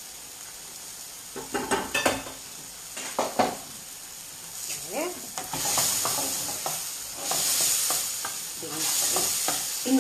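Small prawns sizzling in a steel frying pan as white wine cooks off, stirred with a wooden spoon. A few knocks and clatters come in the first few seconds, then the sizzling swells and fades in waves from about halfway as the pan is stirred.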